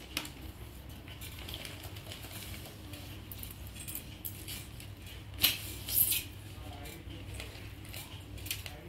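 Handling noise from a small plastic clip-on fan being turned over in the hand: a light click at the start, then a sharp click and a brief rustle a little past halfway.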